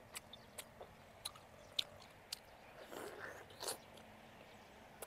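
Close-miked chewing of soft sapodilla fruit: wet mouth clicks and smacks about every half second, with two longer, louder wet sounds about three seconds in.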